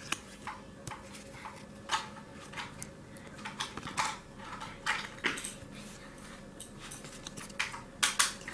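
Captain Tsubasa trading cards handled and sorted by hand: irregular light clicks and slides of card stock against card, with a few sharper taps as cards are squared or set down.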